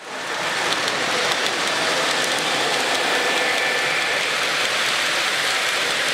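Steady hubbub of a busy exhibition hall, a dense wash of crowd noise that fades in at the start. A garden-scale model train runs along the layout's track within it.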